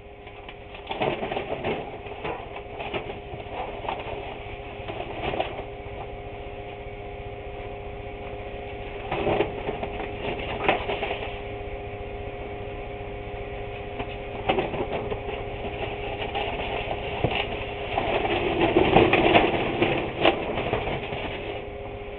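Newspaper sheets rustling as they are handled and pulled apart, with scattered clicks and knocks, over a steady electrical hum. The rustling swells twice, about nine seconds in and again near the end.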